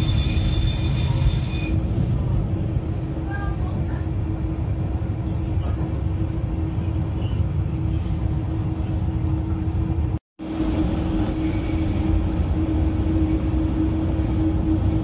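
Electric passenger train running, heard from inside the carriage: a steady rumble of the wheels on the track with a constant hum. A high-pitched squeal is heard in the first second or so. The sound cuts out for a moment about ten seconds in.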